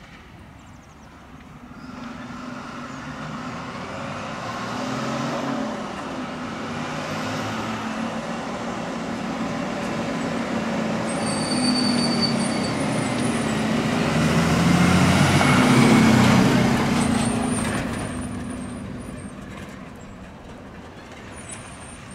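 Heavy truck, most likely a fire engine, approaching and passing: engine and tyre noise builds from about two seconds in, is loudest a little after the middle, then fades away.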